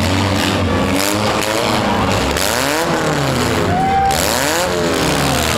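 Several four-cylinder demolition derby car engines revving up and down together, their pitches rising and falling over one another as the cars manoeuvre and ram. A short high steady whine comes about four seconds in.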